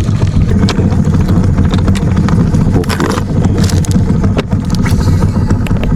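An engine running steadily with a low, even rumble, overlaid by scattered clicks and rattles.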